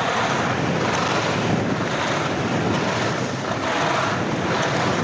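Blizzard Anomaly 94 skis carving linked turns on groomed snow, the edges hissing in a swell with each turn about once a second, over steady wind noise on the microphone.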